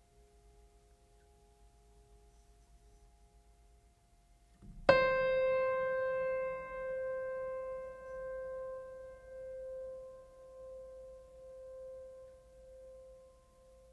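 Background music: faint held tones, then about five seconds in a single piano note is struck and left to ring, fading slowly with a gentle pulsing in loudness.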